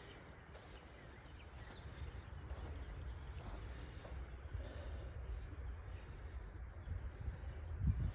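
Small birds giving short, high chirps again and again over a steady low rumble of outdoor noise, with a single thump near the end.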